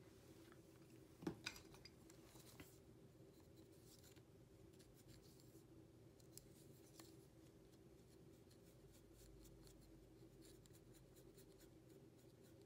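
Faint scraping and scratching of a metal hole cutter being twisted through the wall of a hollow clay xun to cut a larger mouthpiece hole, with a light knock about a second in.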